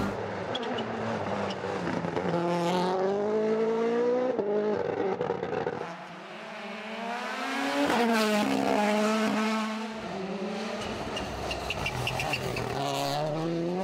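Rally car engines revving hard, the pitch climbing and dropping sharply through gear changes. About eight seconds in, one car passes close, loudest there, with its note rising and then falling.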